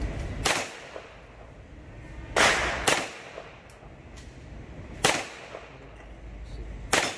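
Five pistol shots fired at uneven intervals, each a sharp crack followed by a short echo; two come in quick succession near the middle.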